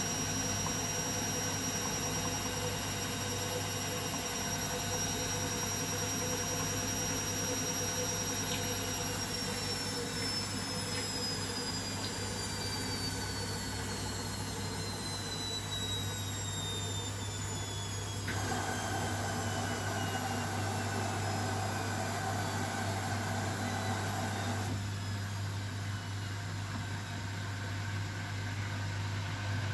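Washing machine running with a steady hum and a high motor whine; about a third of the way in, the whine begins to fall steadily in pitch as the drum spins down. A rougher noise joins for several seconds past the middle.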